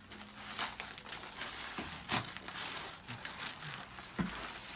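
Rustling and crinkling as a patient turns over to lie face up on a chiropractic treatment table, with a few scattered soft knocks and clicks.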